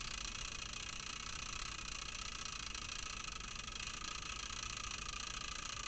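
Faint, steady background hiss of room tone, with no distinct sound events.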